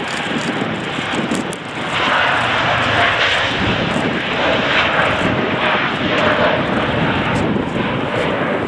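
Boeing 787-9 jet engines running, growing louder about two seconds in, with a faint steady whine under the rush.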